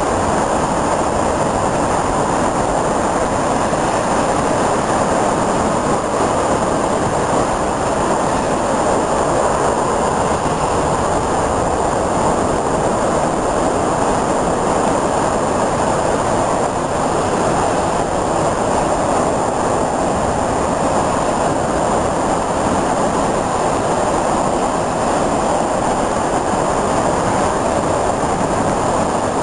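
Steady roar of a rough, stormy sea breaking along a seawall, mixed with wind.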